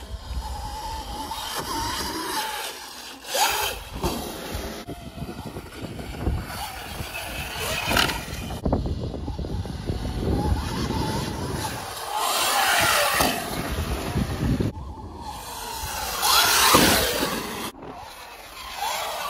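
Sur-Ron electric dirt bike motors whining, the pitch rising and falling with the throttle as riders ride and jump, with surges of rushing noise.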